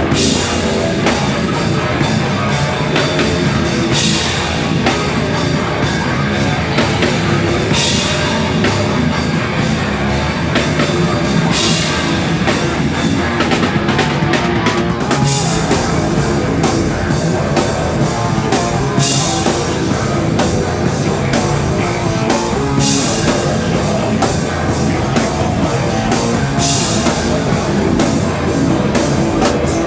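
Loud live rock band playing a song with full drum kit, with cymbal crashes returning about every four seconds.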